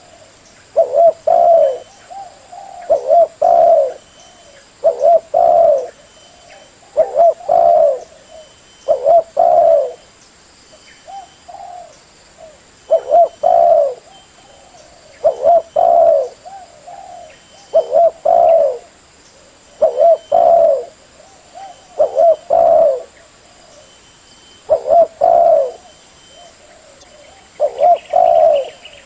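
Spotted dove cooing: loud, low phrases of two or three coos each, repeated about every two seconds, with one longer pause midway.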